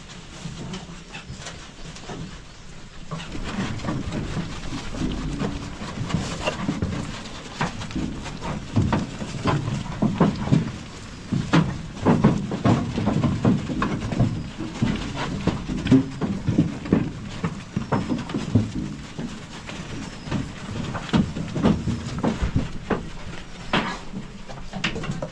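Goats in a pen, with irregular knocks and clatter that get busier about three seconds in.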